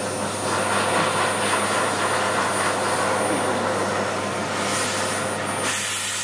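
Vacuum cleaner running steadily, its hiss growing brighter for about a second near the end.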